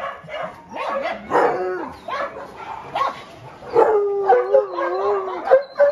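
Several excited dogs whining, yipping and howling together in greeting, with one long wavering howl from about four seconds in.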